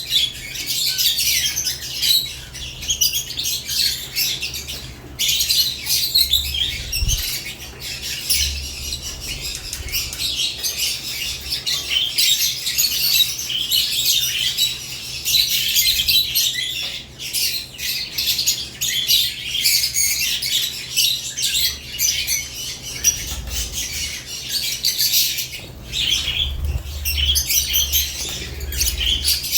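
Several caged lovebirds chattering nonstop: a dense, high-pitched run of overlapping chirps and squawks.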